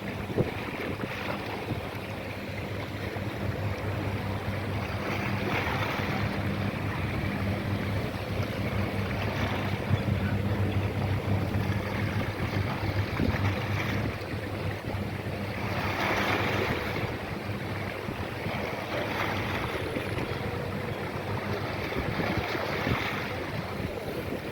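Wind buffeting the microphone over the sound of waves, with a faint low steady hum from a vessel that fades out a little past halfway.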